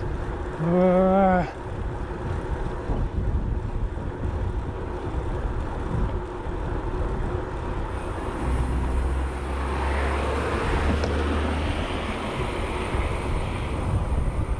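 Wind and road noise from riding a bicycle along a highway, with a motor vehicle passing: a low engine rumble and tyre hiss swell from about halfway through and fade a few seconds later. About a second in, a brief pitched, voice-like sound is the loudest moment.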